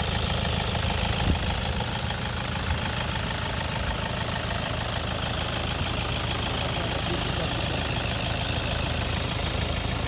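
Toyota Hilux's 3-litre diesel engine idling steadily, with a diesel clatter.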